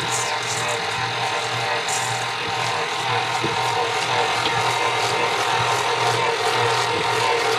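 KitchenAid Artisan stand mixer running steadily on its slowest (stir) speed, its dough hook kneading a stiff bread dough: an even motor and gear hum with a rubbing, churning noise.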